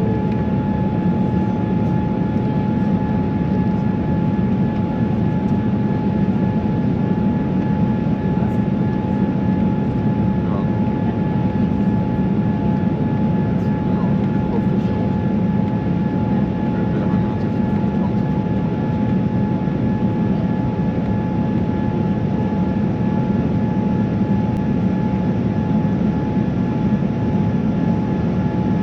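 Steady cabin noise inside a Boeing 787-9 airliner in flight: engine and airflow noise with a constant high whine, unchanging throughout.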